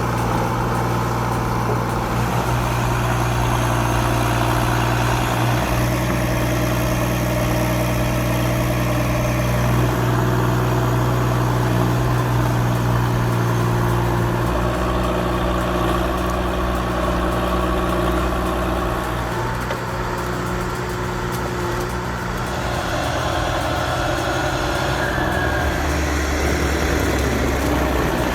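Heavy diesel engine of forestry or farm machinery running steadily, its note shifting lower about 25 seconds in.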